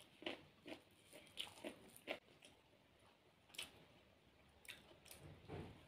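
Faint, close eating sounds: a scattering of short clicks and smacks from chewing a mouthful of food.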